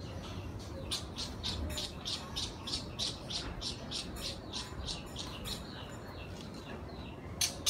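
Small bird chirping in a quick series of short, high chirps, about two or three a second, then pausing. A louder sharp click comes near the end.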